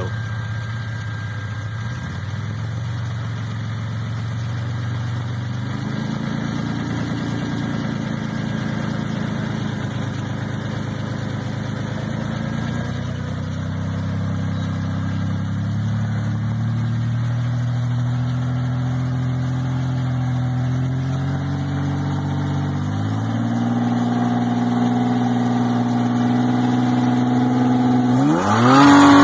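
Lifted Toyota 4Runner's engine running under load as it climbs on oversized tires, holding a steady note and revving up in long surges a few times, with a quick rise and fall near the end.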